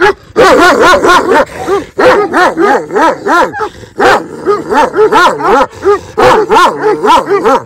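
Livestock guardian dogs barking loudly in rapid runs, several barks a second with overlapping barks at different pitches, starting suddenly.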